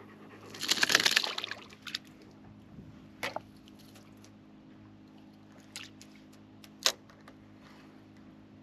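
Water splashing briefly about a second in, then a few sharp taps at the surface beside a boat, over a faint steady low hum.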